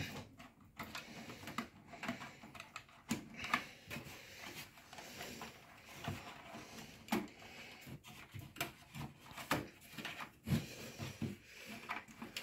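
Scattered light clicks, taps and rustles of cables and braided cooler tubing being handled and pushed into place inside a computer case, at irregular moments.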